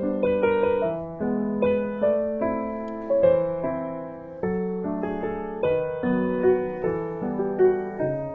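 Soft background piano music: a gentle melody over chords, notes struck and left to fade.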